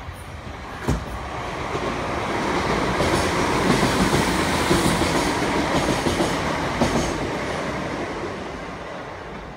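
Electric multiple unit train passing through a station: wheels rumbling and clacking over the rail joints, building as it draws level and fading as it moves away, with a sharp knock about a second in and another near the end.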